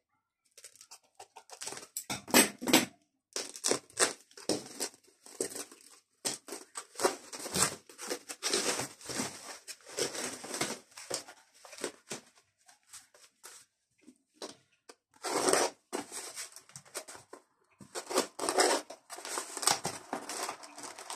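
White foam packing sheet rustling and crinkling as it is unrolled by hand, in irregular bursts with short pauses. Near the end, a brown paper wrapping crackles as it is handled.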